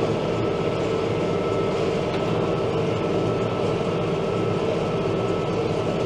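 New Holland Workmaster tractor and the small square baler it drives, running steadily together. A constant mechanical drone with a faint steady whine over it.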